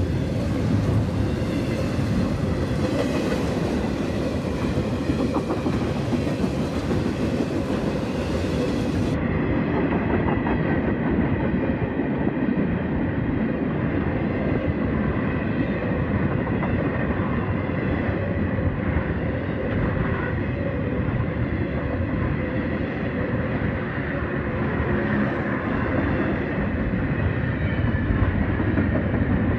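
Intermodal freight train's well cars, loaded with containers, rolling past close by at speed: a steady, loud rumble of steel wheels on the rails with a faint ringing tone above it.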